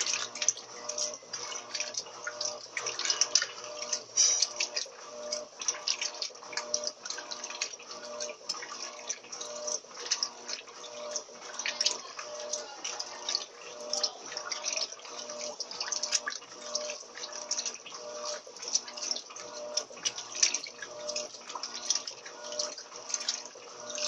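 Electrolux Turbo 13 kg (LT13B) top-loading washing machine agitating during its rinse, on the heavy-soil agitation setting: water sloshing and churning round the tub, with the motor's hum pulsing on and off in an even rhythm with the agitator's strokes.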